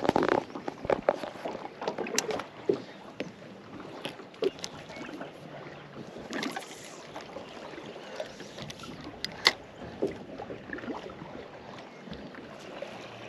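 Scattered clicks and light knocks of a spinning rod and reel being handled on a fishing boat's deck, over a low haze of wind and water; one sharp click stands out about nine and a half seconds in.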